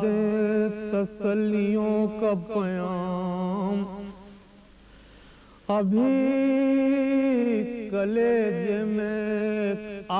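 A man singing an Urdu salam (elegiac verse) unaccompanied, in long held notes that waver and bend in pitch. About four seconds in the voice stops for a breath of about a second and a half, then comes back on a higher held note.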